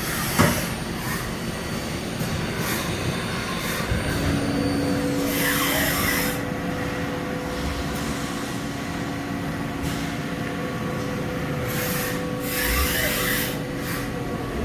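Haas Super Mini Mill 2 CNC machining center running: a steady whine sets in about four seconds in and holds, over a background of machine noise, with two longer swishing rushes.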